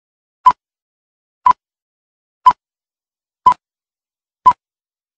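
Film countdown leader beeps: five short, identical high beeps, one each second, marking the count.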